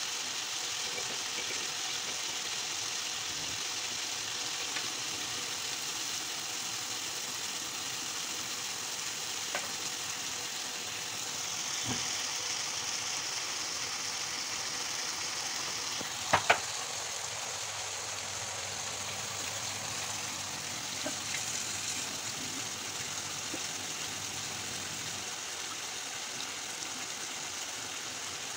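Diced chicken breast sizzling in oil in a frying pan, a steady frying hiss. Two sharp clicks about sixteen seconds in.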